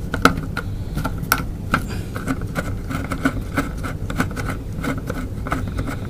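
Screwdriver turning a small screw out of a hard-drive mounting bracket: a run of small irregular metal clicks, a few a second, over a steady low hum.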